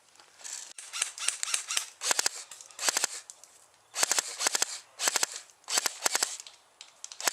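Airsoft guns firing short rapid bursts of sharp cracks, a burst roughly every second, with brief pauses between.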